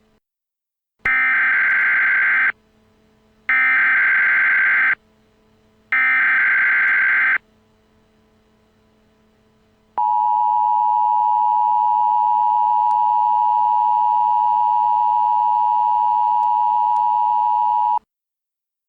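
Emergency Alert System tones: three bursts of warbling SAME digital header data, each about a second and a half long with short gaps, then the steady two-tone attention signal for about eight seconds, which cuts off suddenly.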